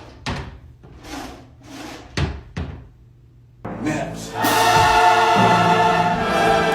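A few sharp, short cracks like small firecrackers, then loud orchestral music comes in a little past the middle and carries on.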